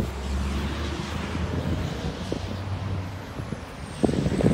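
A vehicle engine idling close by, a steady low hum, mixed with rustle and a cluster of sharp knocks near the end.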